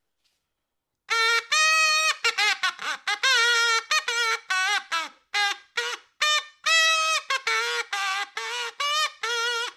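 Comedy sound effect: after a second of silence, a fast tune of short, trumpet-like honking notes with wobbling, bending pitch, roughly two notes a second.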